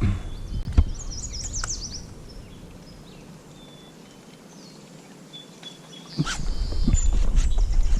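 Birds chirping in quick high calls over outdoor background noise. About six seconds in, a louder low rumble with scattered clicks sets in.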